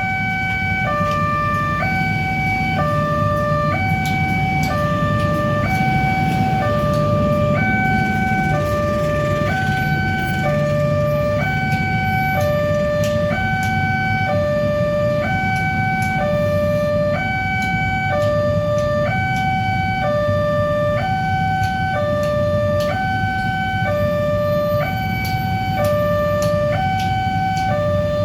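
Railway level-crossing warning siren sounding a two-tone hi-lo wail, switching between a higher and a lower tone about once a second, over the low rumble of road traffic.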